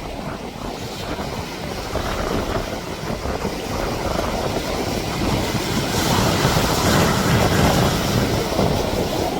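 Steady rushing noise of a moving car with wind, growing louder about six seconds in.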